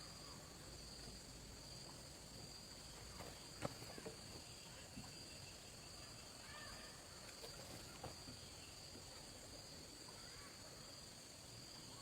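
Faint, steady insect trill, crickets or similar, with a few soft clicks or knocks, the sharpest about three and a half seconds in.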